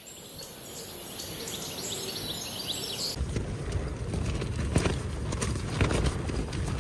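Strong wind buffeting a nylon backpacking tent from inside, the fabric flapping and snapping in irregular rapid knocks. For the first three seconds it is a softer, steadier wind noise with a high hiss, which fades in from silence; then the flapping becomes louder and denser.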